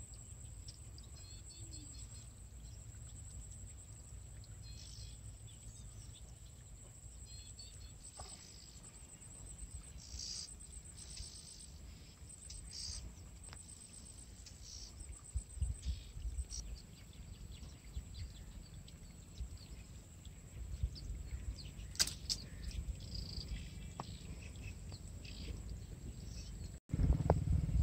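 Quiet field ambience: wind rumbling on the microphone, a steady high insect whine and a few faint bird chirps, with one sharp click about two-thirds of the way through. The wind rumble grows louder near the end.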